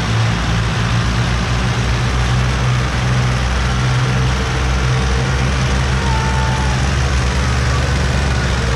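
Diesel tractor engines working hard under heavy load, a loud, steady low drone, as a chain of tractors hauls a loaded sugarcane trolley out of a field.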